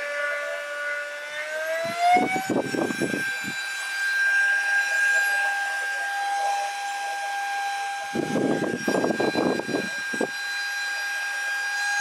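DSPIAE handheld cordless vacuum's motor running with a steady high whine. About two seconds in it steps up to its higher speed, the pitch rising and then holding. Twice its exhaust air blows on the microphone, giving short whooshing rumbles.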